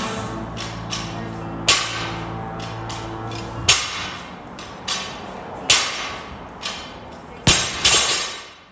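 A barbell loaded with bumper plates, 135 lb, is set down and dropped onto a rubber gym floor between power clean reps. It gives a sharp clanging impact about every two seconds, with two close together near the end.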